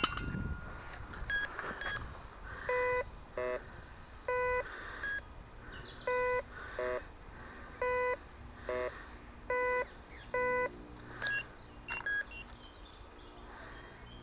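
Metal detector giving repeated target signals as it is swept over a buried object: pairs of beeps, a lower tone followed by a slightly higher one, about every second and a half, with a few short high pips in between.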